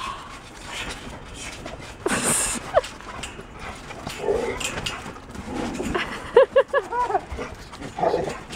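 Dog playing excitedly, jumping up at a person on a trampoline. About six seconds in it gives a quick run of short, high-pitched yips and whines.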